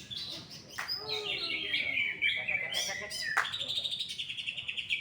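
Cucak ijo (green leafbird) singing fired-up: a fast run of high-pitched chirps and sweeping notes that turns into rapid trilling in the second half.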